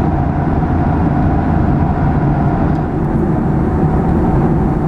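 Cabin noise of a Boeing 737 in cruise, heard at a window seat beside the jet engine: a steady, even roar of engine and rushing air.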